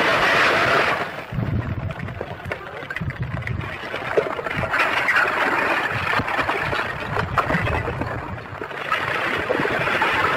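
Lava flow front advancing under a bridge: a rough rumbling noise with crackling and clattering as glowing rock chunks break off and tumble. A louder rushing noise comes at the start and again near the end.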